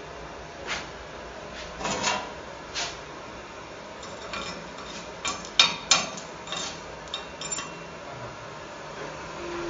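Chipping hammer knocking slag off a freshly laid stick-weld bead on steel plate: about ten sharp metallic taps, irregularly spaced, the loudest a quick pair around six seconds in.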